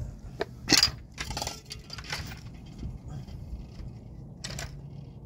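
Metal hand tools being rummaged through: a few separate clinks and short rattles, the loudest a sharp knock under a second in.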